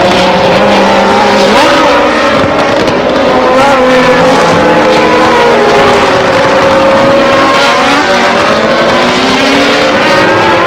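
Racing car engines running at high revs, several at once, their pitches rising and falling over one another as they accelerate and ease off, steady and loud throughout.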